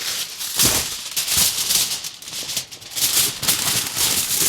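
Aluminum foil crinkling and rustling in irregular bursts as sheets are pulled off and handled for wrapping potatoes.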